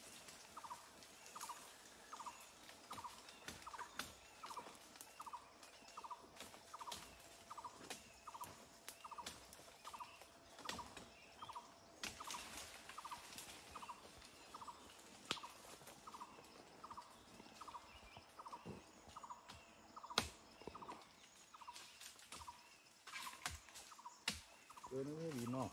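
An animal's short call repeated steadily, about three times every two seconds, with scattered sharp snaps and taps.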